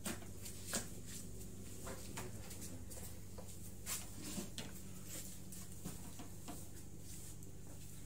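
Room tone with a steady low electrical hum, broken by scattered light knocks and rustles of people moving about the room.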